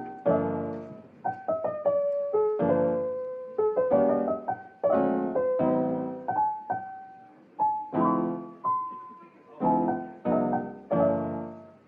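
Background piano music: chords and single notes, each struck and then fading, in an unhurried melody.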